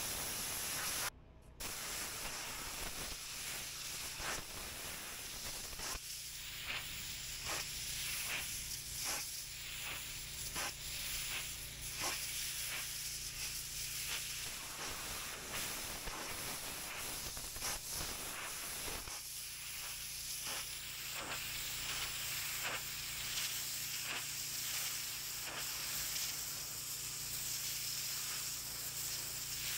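Pressure washer jet spraying hard water in a steady hiss, pulsing in regular swishes about every half second, over the low hum of the machine. The sound drops out briefly about a second in.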